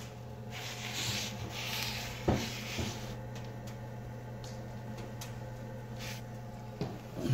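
Circulation pump motor of a boiler-combined wood fireplace running with a steady low hum as it pushes hot water into the underfloor heating, switched on because the water has passed its 40-degree setpoint. A rustling comes early, and a few sharp knocks sound about two seconds in and again near the end.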